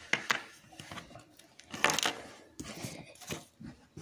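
Light handling noise: a few irregular taps and rustles of plastic Littlest Pet Shop toy figures being moved and set down on a wooden tabletop.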